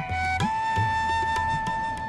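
Background music: a flute holding a long note, stepping up in pitch about half a second in, over a low accompaniment.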